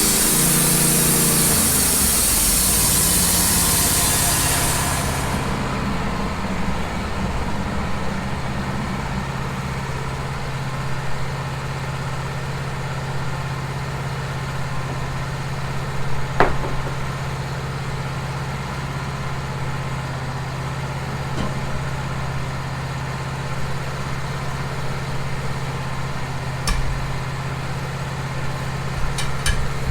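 Wood-Mizer LT15 band sawmill: the high hiss of the blade cutting the cedar log dies away about five seconds in, leaving the mill's engine running steadily. A single sharp knock about halfway and a few light clicks near the end.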